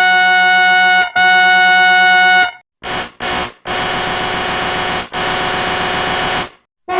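Tesla Cybertruck horn, electronically altered, sounding in a honk pattern: two long steady blasts, then two short beeps and two more long blasts in a harsher, noisier version of the horn tone.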